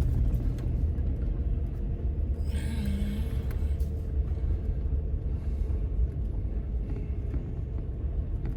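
Steady low rumble of a vehicle running, heard from inside the cabin, with a brief hiss about two and a half seconds in.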